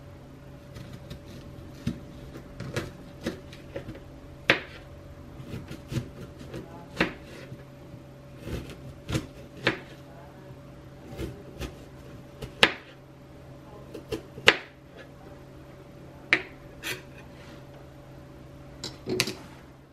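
A paring knife cutting through a firm green fruit and knocking on a thin plastic cutting board: irregular sharp clicks and taps, a couple of them louder, over a faint steady hum.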